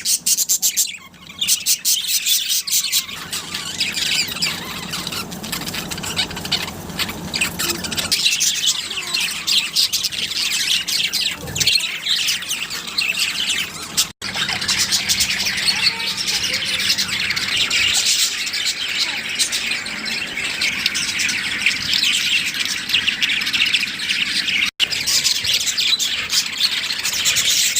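A group of small pet parrots chattering continuously with squawks and chirps, breaking off for an instant twice.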